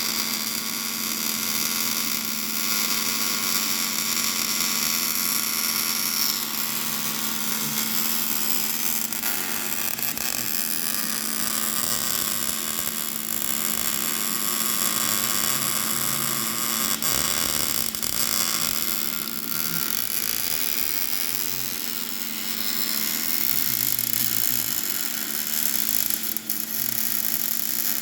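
Welding arc crackling and hissing steadily, with a constant electrical hum underneath.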